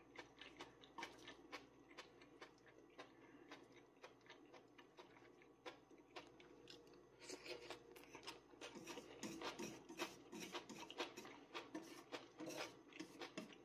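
Faint, close chewing of stir-fried greens: a steady run of small wet clicks and crunches, busier and louder from about halfway through.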